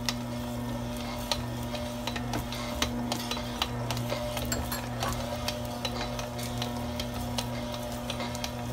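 Stand mixer motor running with a steady hum as its dough hook kneads enriched bread dough, which still needs further gluten development. The dough knocks against the steel bowl in frequent light clicks.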